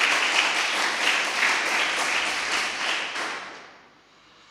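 A church congregation clapping their hands in thanks, dying away about three and a half seconds in.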